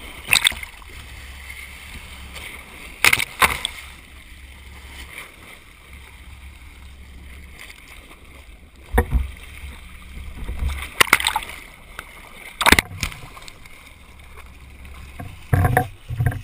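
Boat and water noise heard through a GoPro's underwater housing: a steady low rumble with sharp knocks and splashes at irregular intervals.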